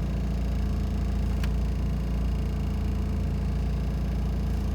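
Car engine running with a steady low rumble. A single faint click comes about a second and a half in.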